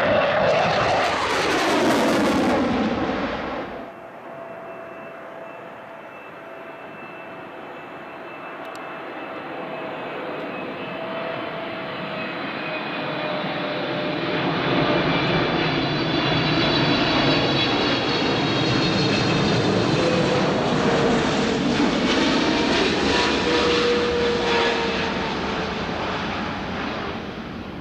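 A loud jet rush, falling in pitch, cuts off suddenly about four seconds in. Then an Emirates Boeing 777-300ER on final approach, its two GE90-115B turbofans whining with several steady tones over a rushing roar that grows louder as it comes near and passes, easing off near the end as it comes down onto the runway.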